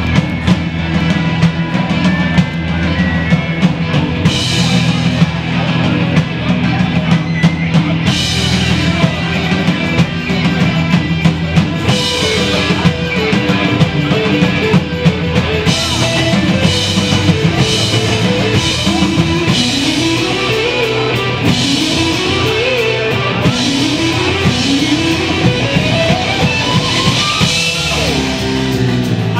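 Live rock band playing: drum kit, electric guitars, bass guitar and keyboard. In the second half a lead line bends repeatedly up and down in pitch.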